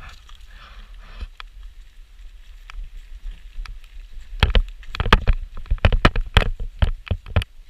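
Irregular thumps and knocks of running footfalls jolting a body-worn action camera, starting about four seconds in and coming two to four a second, over a low wind rumble on the microphone.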